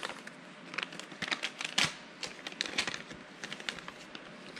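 Irregular light clicks and taps of small plastic fuser parts being handled and unpacked, with a little rustling.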